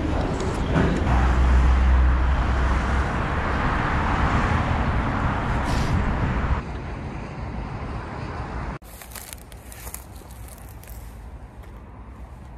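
Steady road traffic noise with a deep rumble from a passing vehicle about a second in. It drops a little at about six and a half seconds, then cuts off sharply at about nine seconds to a much quieter outdoor background with a few light clicks.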